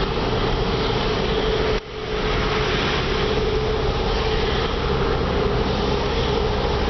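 Car heater blower running on defrost inside the cabin: a steady rushing noise with a constant whine. It drops out briefly about two seconds in.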